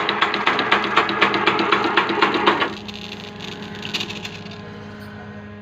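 A machine running with a rapid, even mechanical clatter, about eight clicks a second, over a low hum. The clatter stops abruptly a little under three seconds in, leaving a quieter steady hum.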